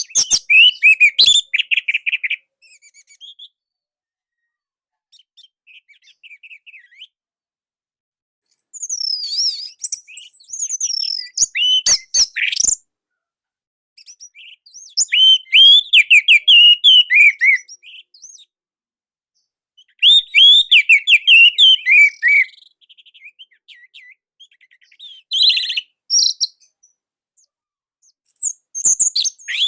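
Orange-headed thrush singing in short bursts of quick, varied chirping and warbling notes, each phrase a second or a few seconds long, broken by pauses of one to three seconds. The song is tightly packed and loud.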